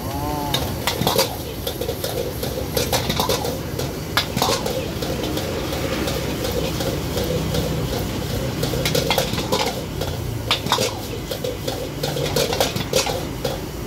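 Metal spatula and ladle clanking and scraping against a large wok as fried rice is stir-fried and tossed, in quick irregular strokes over a steady background noise.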